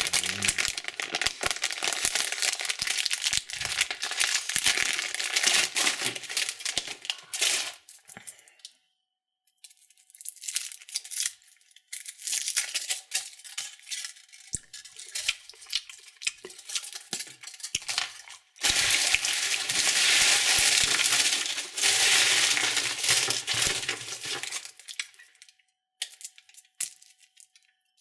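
Candy wrapper crinkling and tearing as a chocolate Santa Claus is unwrapped. It comes in three long spells of dense crackling, with a near-quiet gap about nine seconds in, and ends in a few scattered clicks.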